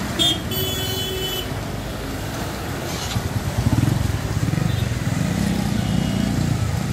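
Street traffic: motor vehicles running past, one coming up louder in the second half, with a short high horn-like tone about half a second in.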